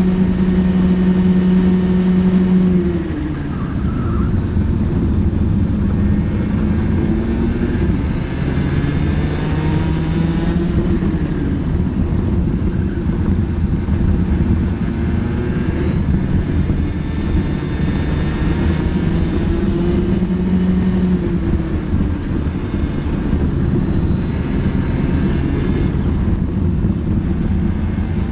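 Racing kart engine heard close from onboard, held at high revs, then dropping in pitch about three seconds in as the kart slows for a corner. It climbs again along the next straight, and the pitch falls and rises like this several times through the lap.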